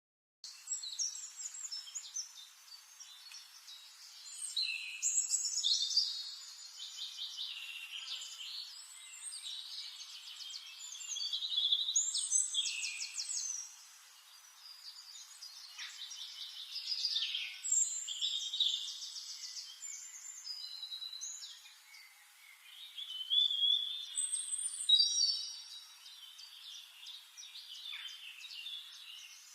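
Chorus of forest songbirds, several birds singing and chirping over one another in trills and whistled phrases. It starts abruptly out of silence about half a second in.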